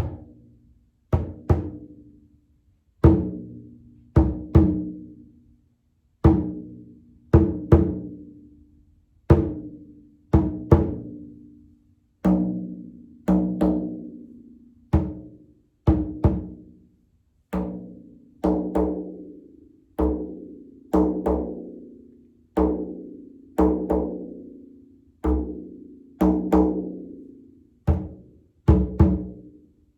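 Frame drum struck in a slow, simple beat: a single stroke followed by a quick double stroke, repeating about every three seconds, each stroke ringing with a low tone and dying away.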